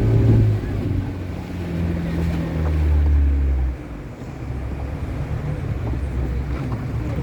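Boat's motor running under way, with wind buffeting the microphone and water noise; a little past halfway the engine eases off and runs quieter.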